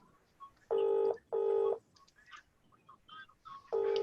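Telephone ringback tone in the British double-ring pattern: two short rings about a second in, and the pair again near the end, an outgoing call ringing unanswered.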